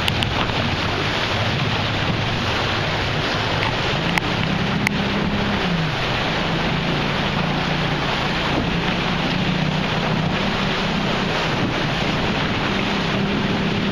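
Wind buffeting the microphone and water rushing past a boat under way, a steady loud rush. From about four seconds in a low engine hum wavers up and down in pitch beneath it.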